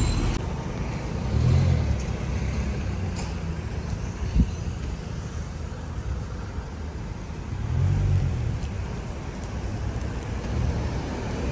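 Street traffic going by: a low rumble of cars that swells twice as vehicles pass, with one short knock about four seconds in.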